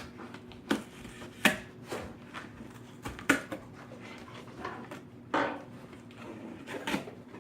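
Cardboard box being cut and pried open with a knife: scraping and rustling of cardboard with several sharp knocks and taps spread irregularly through it.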